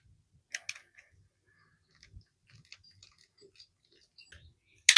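Scattered small crunches and clicks as the old electric-scooter tire is cut through and pried apart by hand, with a quick rapid run of clicks near the end.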